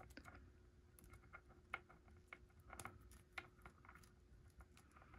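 Faint, scattered clicks and taps of plastic as a Black Series IG-88 action figure and its small blaster accessory are handled and the accessory is worked into the holster on the figure's back.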